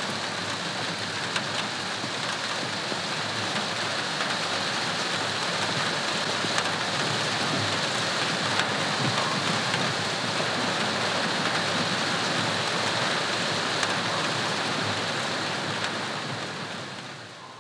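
Steady rain falling, an even dense hiss with occasional sharp drop ticks, fading out near the end.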